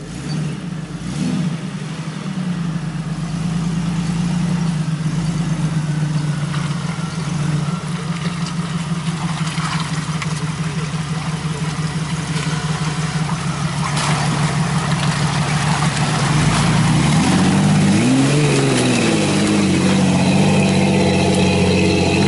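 Jeep Wrangler YJ on 35-inch tyres driving off-road through mud, its engine running at a steady low pitch with a sharp knock or two, then revving up and down near the end as it climbs a steep bank.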